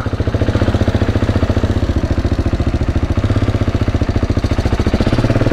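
KTM 690 Enduro's single-cylinder four-stroke engine running as the motorcycle rides slowly onto the ferry ramp, a steady, rapid thumping pulse.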